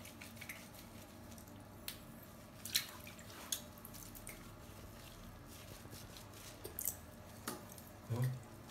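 Wet hands rubbing a soapy baby monkey over a stainless steel sink: soft squelching, with scattered drips and small splashes of water. A short, low thump near the end.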